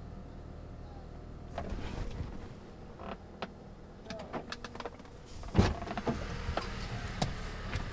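Car interior: a steady low engine hum under scattered clicks and knocks, with one heavier thump about two thirds of the way through.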